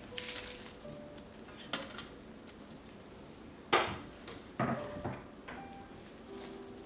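A few sharp clinks and knocks of cookware against a stainless steel wok, the loudest just past halfway and followed by two more shortly after.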